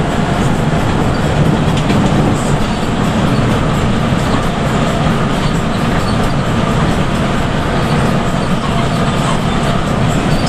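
Steady drone of a bus's engine together with tyre and road noise, heard from inside the cab while cruising at highway speed.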